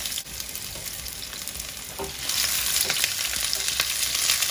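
Diced onions sizzling in hot oil in a stainless steel frying pan while being stirred with a spatula. The sizzle grows louder about halfway through, with a few light clicks of the spatula against the pan.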